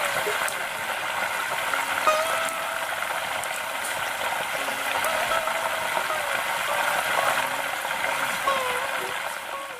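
Butter bubbling and sizzling in an iron karahi over a wood fire as it cooks down into ghee: a steady dense crackle and hiss.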